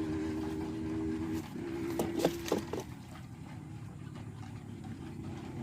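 An engine drones at a steady pitch, loudest in the first second and a half and then fading. A few sharp clicks come about two to three seconds in.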